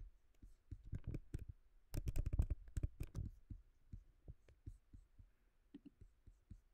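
Irregular clicks and soft low thumps from a computer being worked, with a dense run of them about two to three seconds in.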